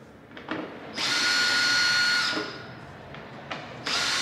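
Cordless power tool whirring steadily as it undoes bolts under a car's rear bumper: one run of just over a second starting about a second in, then a second run starting near the end, with small clicks of the tool seating on the bolt before each.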